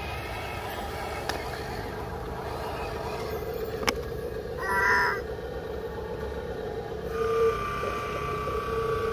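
Radio-controlled toy truck's electric motor and gearbox whining steadily, joined by a second, higher whine about seven seconds in. About five seconds in there is one short, harsh pitched call.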